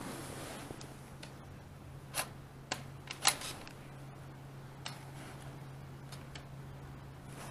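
A handful of short, sharp clicks and light knocks from handling a handheld camera, about five spread over several seconds, over a low steady hum.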